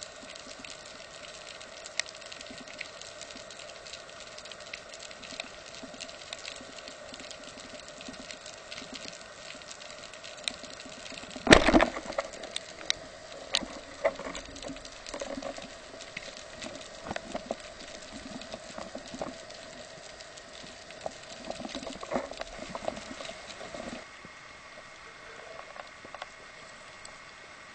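Underwater sound of a speargun firing: one sharp, loud thud a little before halfway, then rattling knocks and clicks from the shaft and line. Behind it runs a steady crackle of fine underwater clicks.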